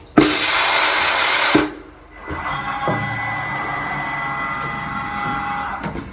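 Haas MDC-500 vertical machining center: a loud hiss starts abruptly just after the start, lasts about a second and a half and cuts off sharply. After a brief lull comes a quieter, steady machine whine with a few high tones.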